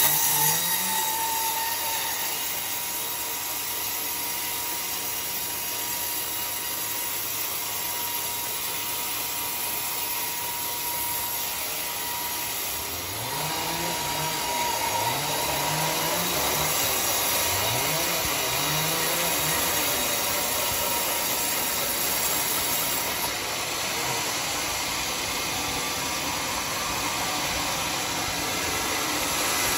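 Homemade band sawmill running steadily, its blade cutting lengthwise through a teak log, with a faint steady whine. Several short rising low tones come in about halfway through.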